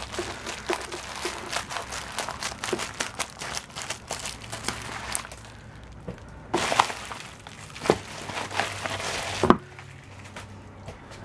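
Scissors snipping through a plastic bubble mailer, with the plastic crinkling. Then come rustling and three sharp knocks as the package is handled and set down on a wooden table.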